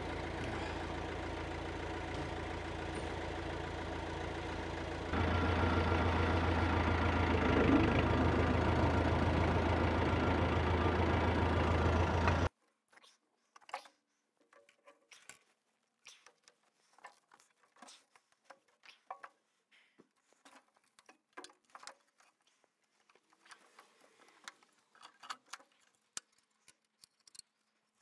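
Massey Ferguson tractor engine idling steadily, a step louder about five seconds in, then cut off abruptly about halfway through. After that, only faint scattered clinks and knocks of the metal hydraulic valve block being handled and set in place.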